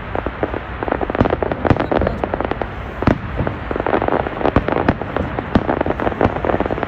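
Fireworks going off in rapid succession: a dense, unbroken run of bangs and crackles.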